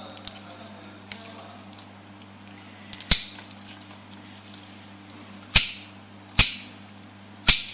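Sharp clicks and knocks of tools and parts being handled while the power cable's wiring is redone: four loud, sharp clicks, the first about three seconds in and the last near the end, with a few light ticks between.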